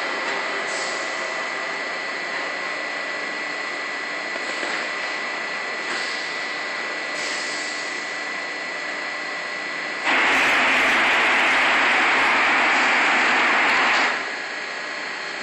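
Vacuum forming machine running with a steady mechanical hum and a thin high whine. About ten seconds in, a loud rush of air starts, lasts about four seconds, and cuts off suddenly.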